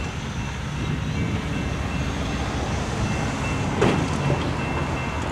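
Diesel locomotive engine running steadily out of sight, a low even rumble. A single sharp knock comes about four seconds in.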